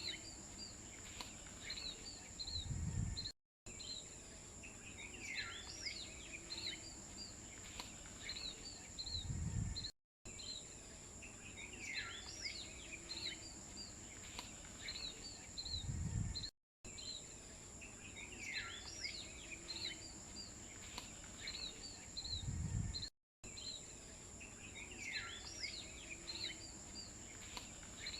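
Birds chirping over a steady high insect drone. The same few seconds repeat about every six and a half seconds, each pass ending with a low thump and a brief cut to silence, as in a looped ambience track.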